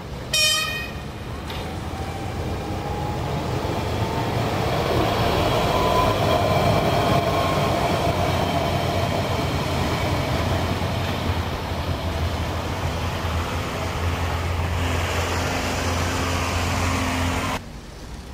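A short horn blast, then a light-rail tram of metro-type cars approaching and running past: a rumble with a rising motor whine, loudest about six to eight seconds in and staying loud until it cuts off suddenly near the end.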